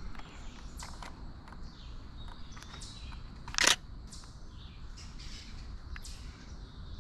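Faint songbird chirps over quiet woodland ambience, with one sharp click about halfway through.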